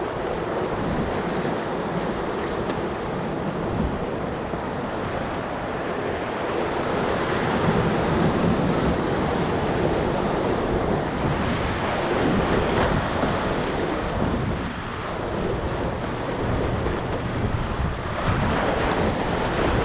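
Rushing whitewater of a Middle Ocoee River rapid around a kayak, steady throughout, with wind buffeting the microphone.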